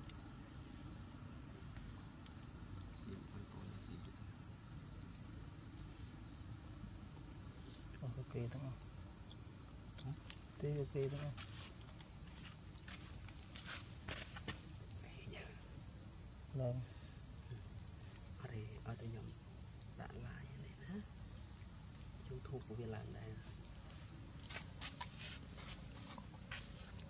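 Steady, high-pitched insect chorus droning without a break. Faint voices come and go from about eight seconds in.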